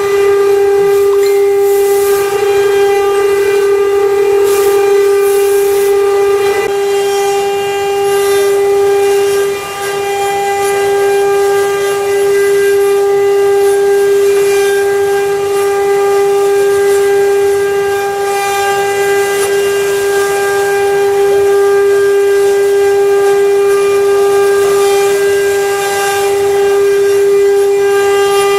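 CNC router spindle carving a wooden statue: a steady high-pitched motor whine at constant speed, with the scratchy hiss of the bit cutting wood.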